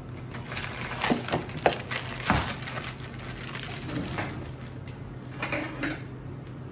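Plastic inner bag of boxed cake mix crinkling and rustling as it is handled, with a cluster of sharper crackles in the first half and a few more near the end.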